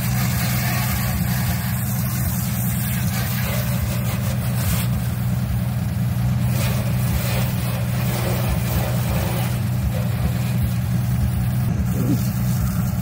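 An engine running at a steady idle, with the hiss of water spraying from a hose onto a truck's body.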